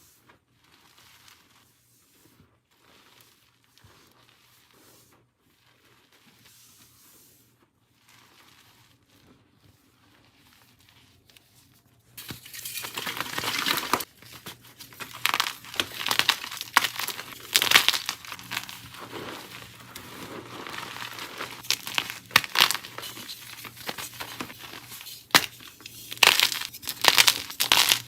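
Almost silent at first, then about twelve seconds in, blocks of dyed gym chalk start being crushed and crumbled: a dense crisp crackling with many sharp cracks and louder crunches.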